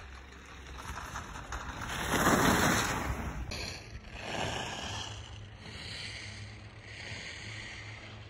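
Skis scraping and carving over packed snow as a skier passes close, a rushing hiss that builds and fades over about two seconds. After an abrupt change, a softer rushing hiss swells and fades a few times.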